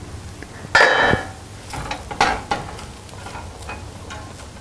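Wooden spoon scraping and stirring through cooked brown rice in a stainless steel pot, fluffing it once it is done: a run of irregular scrapes, the loudest about a second in.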